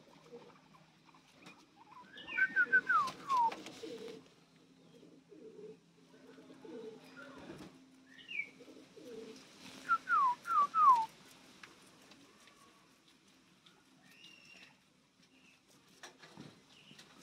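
Guinea pig wheeking: two bursts of four or five short, falling whistles, about two seconds in and again about ten seconds in.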